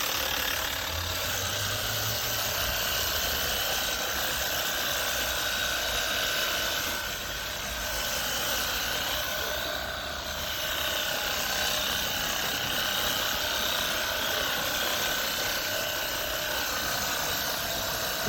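WORX HydroShot cordless pressure washer running: a steady whine from its electric pump motor over a spraying hiss, dipping slightly twice midway.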